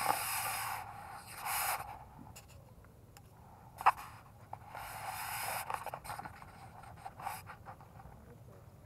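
Scraping and rubbing against the camera's microphone as it is handled, in several short scratchy bursts, with one sharp click about four seconds in.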